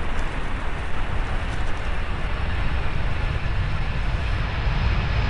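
Jet airliner's engines rumbling steadily as it comes in to land, a low roar with a hiss above it that grows a little louder near the end.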